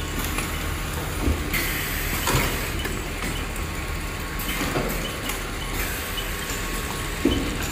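Speed chain conveyor line running: a steady mechanical rumble and chain rattle, with a few sharp knocks, the loudest near the end.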